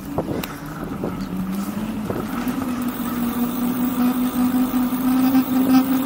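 The e-bike's 2000 W rear hub motor whines under power, its pitch climbing slowly and steadily as the bike gathers speed. A few light knocks come in the first two seconds.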